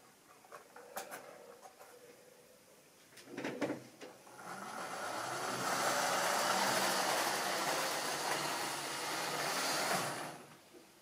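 Model train running on the layout: light clicks, a short clatter about three and a half seconds in, then a steady whir and rattle of motor and wheels on the rails that builds over a second or two, holds, and cuts off suddenly near the end.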